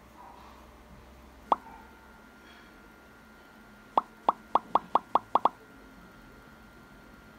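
Short, bright 'pop' sound effects added in the edit: a single pop, then about two and a half seconds later eight more in a quick run of about five a second, each at the same pitch. They mark on-screen captions popping into view, the title first and then one pop per label.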